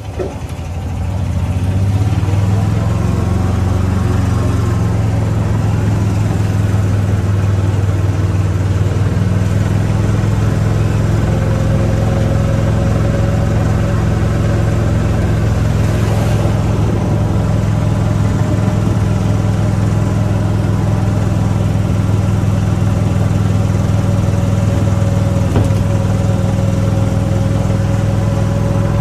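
Shuttle vehicle's engine running steadily, swelling over the first couple of seconds as it gets under way, with a faint wavering whine that comes in about eleven seconds in.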